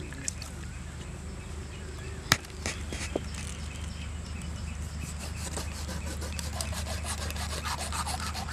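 Large knife scraping along an eel's skin, a dense run of quick rasping strokes through the second half, with a sharp click a little over two seconds in.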